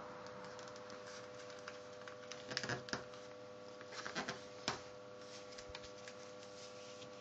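A sheet of paper being folded and creased by hand: two short bursts of rustling and crinkling, about two and a half seconds in and about four seconds in, the second ending in a sharp crisp snap. A faint steady hum sits underneath.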